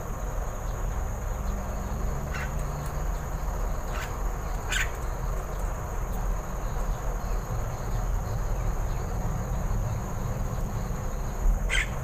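Steady high-pitched insect trilling, typical of crickets, over a low background rumble, with a few short sharp chirps scattered through.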